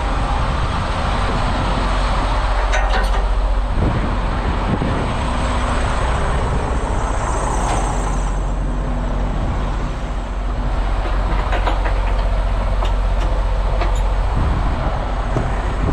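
Heavy diesel machinery running with a steady low rumble, with a few scattered metallic knocks and clanks.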